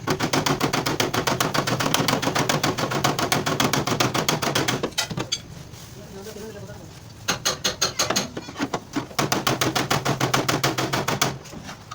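Rapid, evenly spaced mechanical tapping, about ten strikes a second over a steady low hum, in two runs of several seconds with a pause about five seconds in.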